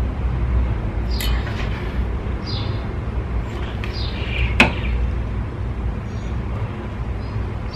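A click-type torque wrench on a diesel cylinder-head bolt gives one sharp click about halfway through as it reaches its set torque. Short falling bird chirps sound now and then over a steady low rumble.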